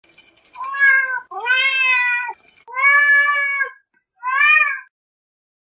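A domestic cat meowing four times, each meow a drawn-out rising-and-falling call, the last one shorter. A thin high ringing tone sounds under the first second.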